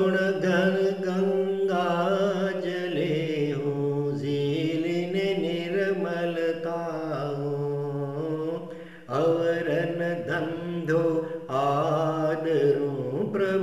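A single voice chanting a Jain stavan (devotional hymn) in Gujarati to a slow melody of long, held notes, with a short break for breath about nine seconds in.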